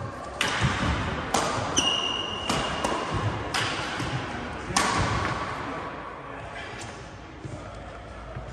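Badminton rackets striking a shuttlecock in a doubles rally, about six sharp smacks over the first five seconds. A high shoe squeak on the wooden court floor comes about two seconds in and lasts about a second.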